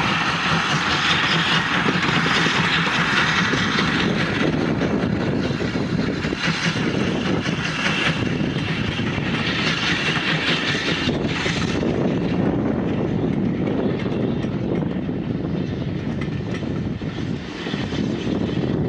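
Steam locomotive hauling a train of coaches past at a distance: a steady mix of working exhaust and wheels running on the rails. The higher part of the sound fades after about twelve seconds as the train draws away, leaving a lower rumble.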